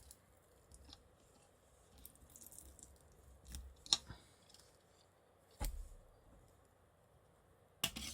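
Faint creaking and crackling of a smartphone battery's adhesive strip releasing as the battery is slowly pried out, with a few sharp clicks.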